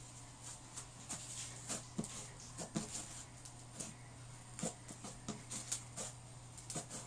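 Crunchy slime packed with microfoam beads being squeezed and stretched by hand, giving irregular crackles and pops, over a steady low hum.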